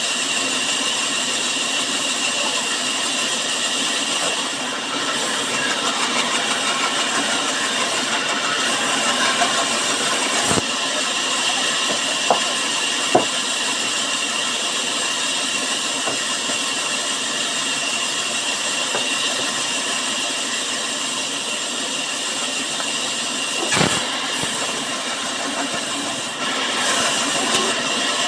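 Sawmill machinery running steadily, with a constant high whine and a few sharp knocks.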